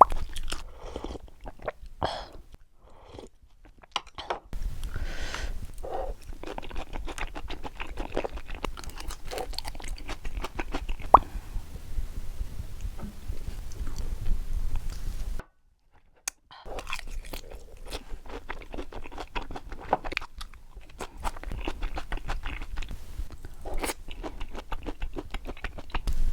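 Close-miked chewing and biting, with many small crunchy, wet clicks of a mouth working on raw yellowtail sashimi. The sound stops for about a second about two-thirds through, then the chewing resumes.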